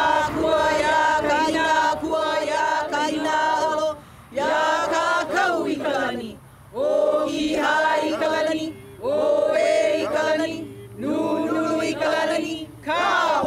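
A small group of voices chanting together in unison, in long held phrases that fall in pitch at their ends, with short breaths between.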